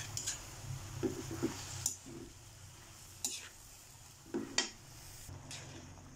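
Metal spoon scraping and clinking against an enamel pan as a panful of kangkong leaves and mushrooms is stirred and tossed. There are several sharp clinks a second or so apart, the loudest about four and a half seconds in, over a faint low hum.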